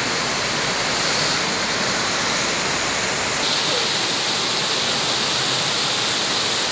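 Heavy rain pouring down in a steady, loud hiss, its tone brightening slightly about halfway through.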